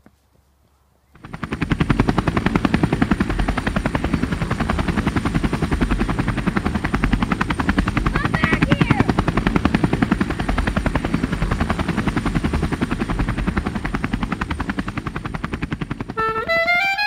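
A loud, steady, very fast mechanical chopping that starts abruptly about a second in, a sound effect laid over the picture. Music with rising notes begins near the end.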